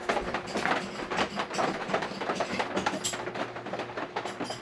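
Footsteps and handling noise from a handheld camera: irregular clicks, knocks and rustles several times a second, over a faint steady low hum.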